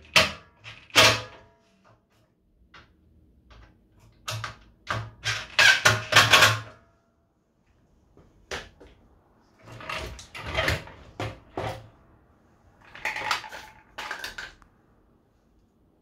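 Irregular clattering and knocks of metal parts and a cordless drill-driver being handled in and around a stainless steel vacuum drum, in several short bursts with pauses between.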